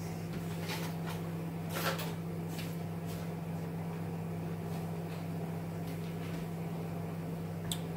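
A steady low hum with a few light clicks and knocks of kitchen handling, the loudest about two seconds in.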